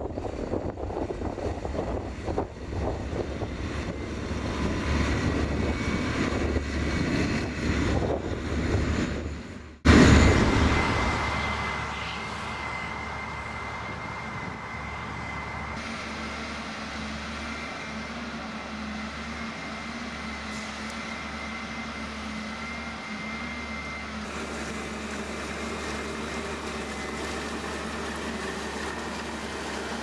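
Tipper lorry driving across a field, its diesel engine rumbling under wind noise on the microphone. About ten seconds in the sound cuts off abruptly and is replaced by pea viner harvesters working: a steady machine drone with a constant high whine.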